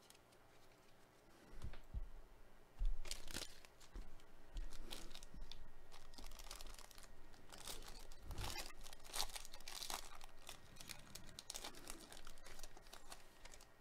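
Foil wrapper of a 2021 Panini Chronicles baseball card pack crinkling and tearing as it is ripped open by hand. The rustles and rips begin about two seconds in and go on in an irregular run, with louder rips around three seconds in and again around nine seconds.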